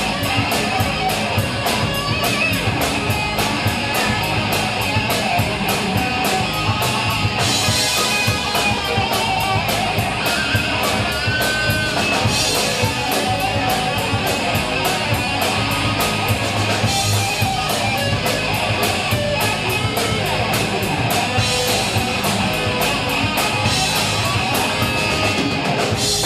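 Live rock band playing an instrumental stretch: electric guitar over a steady drum-kit beat, with no singing.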